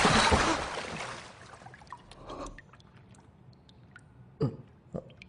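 A water splash in a bathtub fading away over the first second, followed by a few faint drips and small water sounds.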